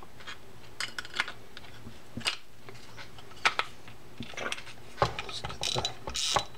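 Clicks and light knocks of a spinning reel's metal and plastic parts being handled and fitted together, then a denser mechanical rattle of its gearing as the rotor is turned near the end.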